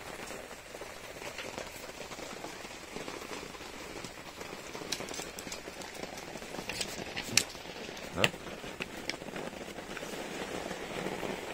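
Steady rain falling on the van and awning. A few sharp clicks and snips stand out in the middle, two of them loudest, as scissors cut a sheet of adhesive repair patches and are put down on the table.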